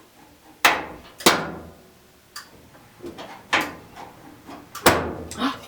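A putty knife jabbing and prying at the seam under a dryer's sheet-metal top panel: a series of sharp knocks, four of them loud, with lighter taps between, as the panel's latch is forced.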